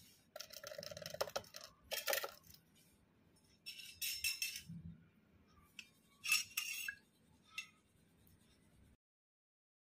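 A stainless steel bowl clinking and ringing in four short bursts, with a fainter fifth near the end.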